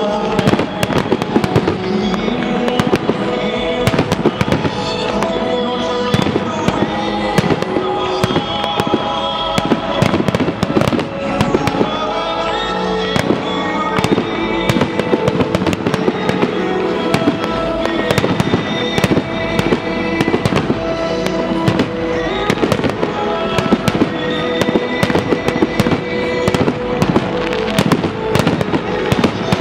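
Fireworks display: a dense run of sharp bangs and crackles from aerial shells bursting and comets shooting up, over continuous music.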